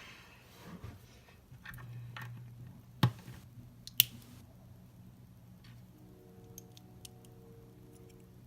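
LEGO bricks being handled and pressed together: some light plastic rustling, then two sharp plastic clicks about a second apart, then a few faint ticks.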